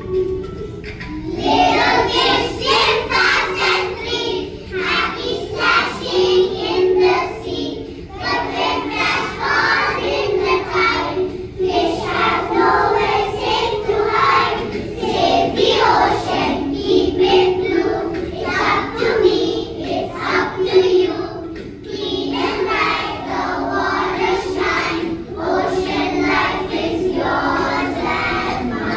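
Young children singing a song together as a group, over recorded music accompaniment.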